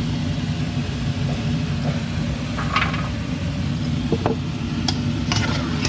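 Strips of scallion cracker dough frying in hot oil in a steel wok, over a steady low rumble and hum. A few sharp clinks of the metal slotted spoon against the wok come in the last couple of seconds.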